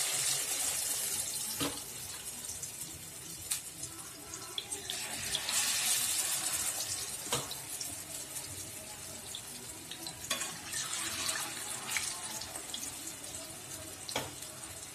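Marinated chicken pieces deep-frying in hot oil in a steel kadai: a steady sizzle with scattered pops and clicks, louder as the first pieces go in and again about halfway through.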